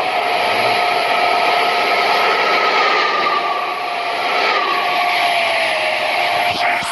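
Bus running under way: a loud, steady rush of engine and road noise with a high whine held over it, the whine's pitch drifting and dipping slightly near the end.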